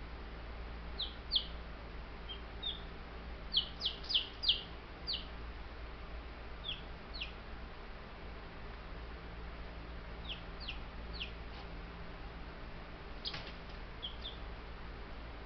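Baby Buff Brahma chicks peeping: short, high, falling peeps come in scattered clusters, busiest in the first half. A low steady hum runs underneath.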